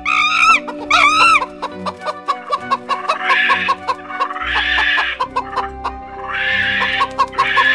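A hen clucking in a quick run with four louder squawking cackles, over background music with sustained notes. Two short high arched calls come in the first second or so.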